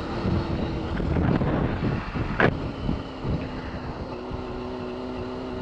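Sport motorcycle engine running steadily under way, with wind noise on the microphone. About two and a half seconds in there is a brief click, and the engine note then sits a little lower and holds steady.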